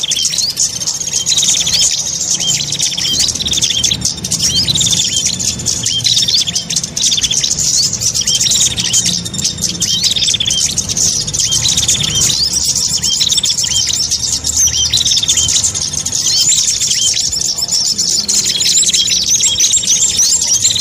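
Recorded small songbird calls for luring birds: a short descending chirp repeating about every second and a half over dense, high chattering trills, with a low hum underneath.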